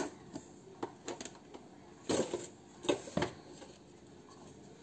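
Light plastic clicks and knocks as a hand blender's motor head is taken off its chopper bowl and the bowl of freshly ground powdered sugar is handled. There are several short knocks, the strongest about two and three seconds in.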